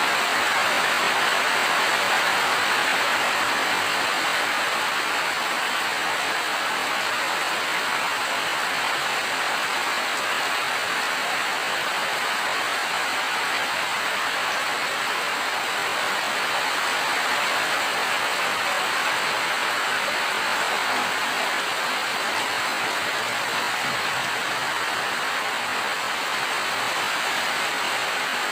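Steady heavy rain falling, an even, unbroken hiss with no distinct drops or thunder.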